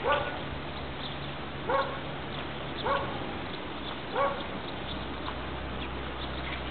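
Border collie barking: four short, high barks roughly a second and a half apart, falling silent for the last couple of seconds.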